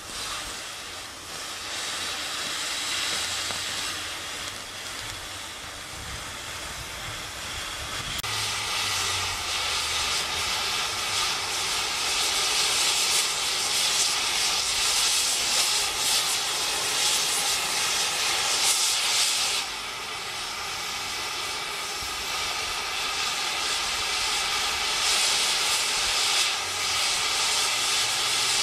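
Oxy-fuel cutting torch hissing steadily as its flame and oxygen jet cut through the riveted steel plate of a steam locomotive. The hiss grows louder about a third of the way in, drops for a moment about two-thirds through, then rises again.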